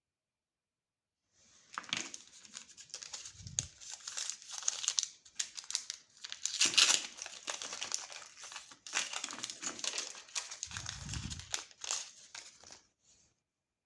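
Chocolate-bar wrappers crinkling and tearing as they are handled and opened, in dense, irregular crackles that start about two seconds in and stop a second before the end.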